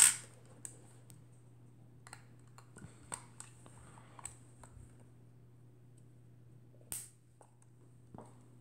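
Faint scattered clicks and taps of a metal Voigtländer Vitomatic IIIb camera body being turned over and handled in the hands, with one louder click about seven seconds in.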